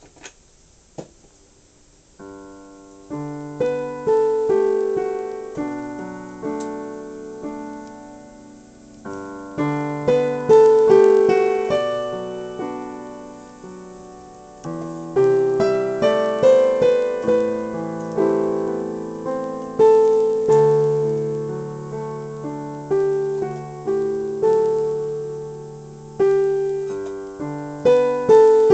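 Electronic keyboard played with a piano voice: chords under a melody, each note struck and fading. It starts about two seconds in, after a couple of soft clicks.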